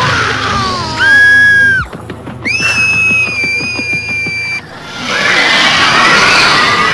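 High-pitched cartoon girl's screams: a falling wail, then two long held screams, the second higher and longer, then a noisy clamour of shrieks.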